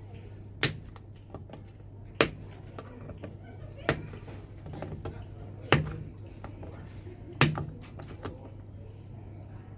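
Cobbler's nippers snipping old steel nails off a shoe's heel seat: five sharp snaps about every one and a half to two seconds, with lighter clicks of the tool between them.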